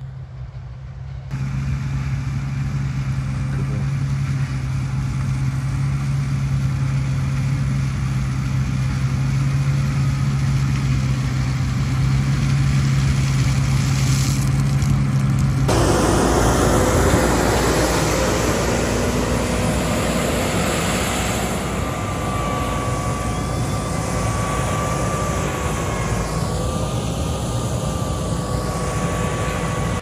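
Holmer self-propelled sugar beet harvester at work: a steady diesel engine drone mixed with the noise of its lifting and conveying gear. The sound changes abruptly about halfway through to a closer, rougher noise with a faint wavering whine.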